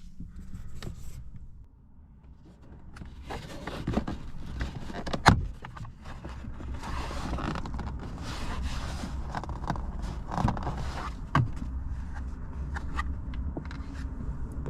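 Plastic A-pillar trim being pried off a car interior: rubbing and scraping of plastic with sharp snaps as the retaining clips pop loose, the loudest a little over five seconds in, over a low steady hum.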